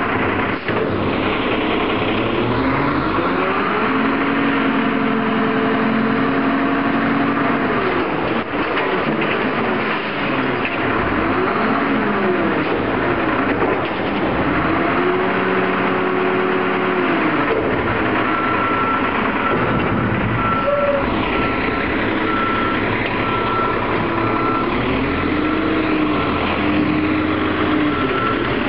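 Front-loader garbage truck's engine revving up, holding, and dropping back several times as its hydraulic forks lift and dump a steel dumpster, with a few metal clanks. In the last ten seconds a reversing alarm beeps about once a second.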